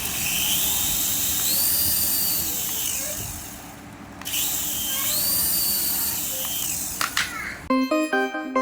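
Small electric motor of a remote-control toy whining, spun up and then wound down twice with a short pause between. Music begins near the end.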